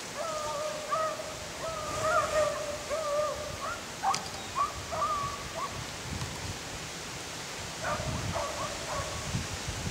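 Distant rabbit-hunting dogs baying in drawn-out howls as they run a rabbit's track, the notes shorter and choppier after about four seconds. Wind rumbles on the microphone underneath.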